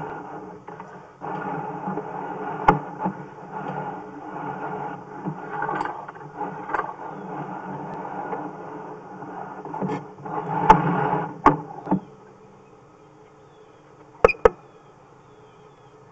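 Sewer inspection camera's push cable being pulled back through the line, a rough scraping rattle with sharp clicks that stops about twelve seconds in. Two sharp clicks follow near the end.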